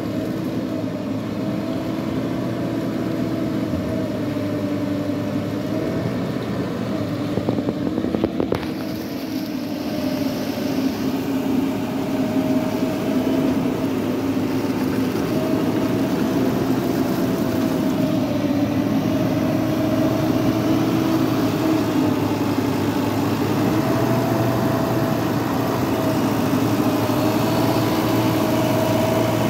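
JCB Eco Xpert backhoe loader's diesel engine running steadily under load as the machine works through deep mud, its engine note wavering slightly. A sharp knock about eight seconds in, and the engine grows a little louder from about ten seconds on.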